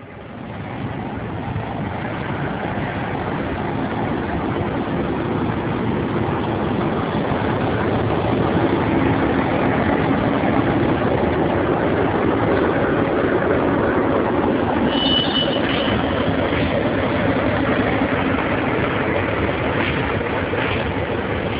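Locomotive running as it hauls freight wagons slowly past: a steady heavy engine hum that builds over the first few seconds. A brief high squeal comes about two-thirds of the way through, and a few sharp clicks near the end.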